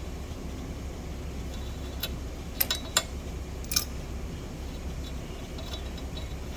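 A handful of light metallic clicks and ticks from steel tools being handled over a steady low workshop hum: one about two seconds in, a quick cluster just before the three-second mark, and one more shortly after.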